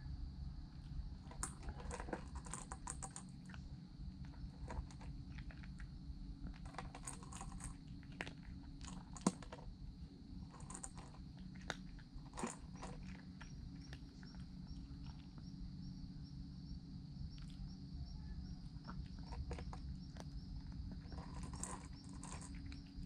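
A calico cat chewing and crunching food from a stainless-steel bowl, in irregular crisp crunches. A single sharp click about nine seconds in is the loudest sound.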